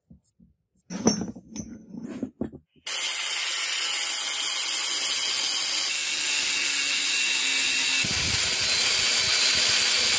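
A few knocks, then about three seconds in an angle grinder with a thin cutting disc starts cutting through a rusted iron chain link, a steady loud grinding that holds to the end.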